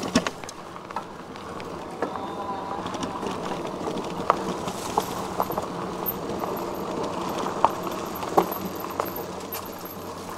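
Himiway Zebra fat-tyre electric bike riding a dirt trail: a steady rolling rush of tyres on dirt, with sharp knocks and rattles from bumps a few times.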